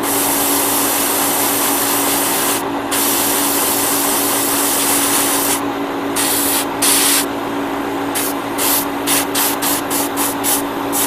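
Iwata Neo airbrush hissing as it sprays paint onto a small plastic model part. It starts as a long continuous spray, broken by a brief pause about three seconds in; from about halfway through it becomes short quick bursts, two or three a second. A steady low hum runs underneath.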